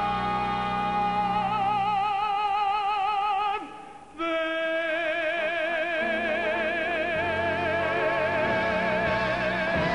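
A male singer belting long, held notes with a wide vibrato, live into a hand microphone with instrumental accompaniment. The sound dips briefly about four seconds in, then he takes up the next sustained note.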